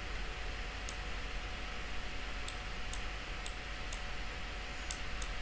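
Computer mouse clicking: about seven short, sharp clicks at uneven intervals, most of them between two and five seconds in, over a faint steady hum.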